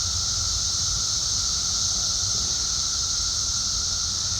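Chorus of periodical cicadas, a steady high-pitched drone from many insects together, with a low rumble underneath.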